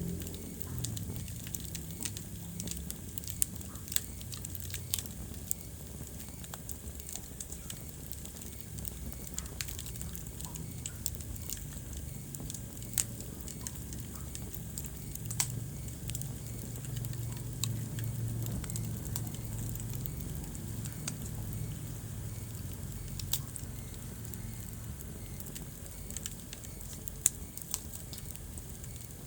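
Wood fire crackling in a fireplace: irregular sharp pops and snaps, a handful noticeably louder than the rest, over a steady low rumble.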